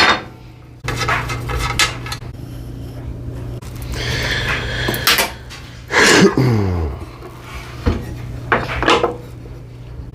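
Metal parts and screws clinking and clattering as a benchtop jointer is put together by hand, with several separate knocks and a scraping slide about six seconds in whose pitch falls. A low steady hum runs underneath.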